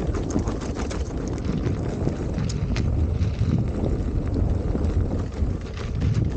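Wind rumbling on the microphone while riding a Veteran Sherman electric unicycle over a rocky trail, with quick irregular clicks and knocks from the tyre and gear clattering over stones and bumps.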